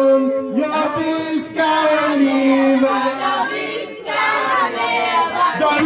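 A group of people singing together in chorus, holding long notes.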